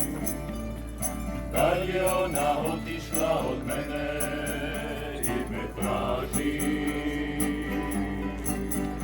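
Group of people singing with instrumental accompaniment: sustained chords under the voices, phrases of singing, and a steady light percussion beat.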